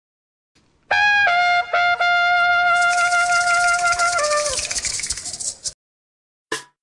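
Short intro jingle: a brass-like melody of a few short notes, then a long held note that steps down and fades out. A bright hiss joins about halfway through, and a single short hit comes near the end.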